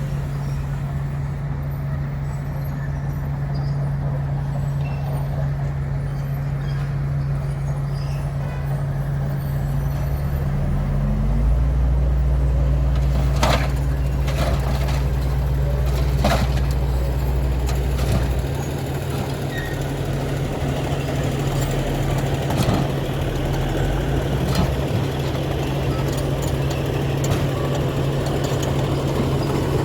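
Heavy diesel engine of an earthmoving machine (dump truck or bulldozer) running steadily, then revving up about ten seconds in and labouring with a deep rumble for several seconds before settling. A few sharp metallic clanks come in the middle and later.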